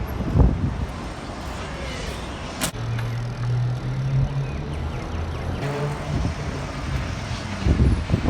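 Road traffic: a motor vehicle's engine running with a steady low hum, and one sharp click about a third of the way in.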